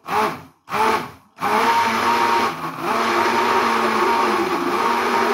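Stick blender blending pear pieces and water in a plastic jug: two short pulses, then the motor runs steadily.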